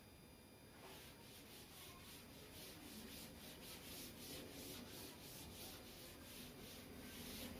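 Chalkboard duster wiping chalk off a chalkboard in quick, even back-and-forth strokes, about three a second, starting about a second in; faint.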